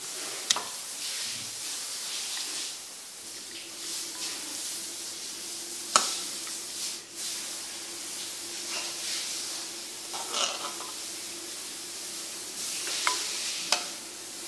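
Metal ladle clinking against a stainless steel pot and a ceramic bowl while soup is ladled out: a few sharp clinks, the loudest about six seconds in, over a steady hiss.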